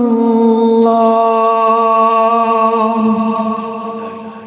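A male muezzin calling the adhan (Islamic call to prayer), holding one long melismatic note within the line 'ashhadu an la ilaha illallah', with a slight step in pitch about a second in. The note fades over the last second and ends in a short falling slide.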